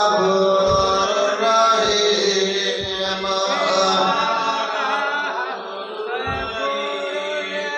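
Devotional chanting: a melodic sung recitation with long held notes, with a few dull low thumps about a second in, around three seconds in and near six seconds.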